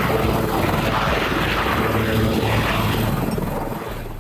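Sikorsky S-61 helicopter's main rotor and turbine engines running at lift-off: a steady, heavy rotor and turbine noise that fades over the last second.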